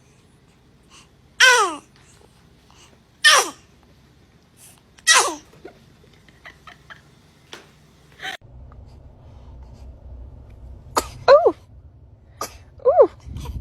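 A baby sneezing: three sharp sneezes about two seconds apart, each ending in a squeaky falling-pitched voice. After a lull, several shorter, squeakier sneezes follow near the end.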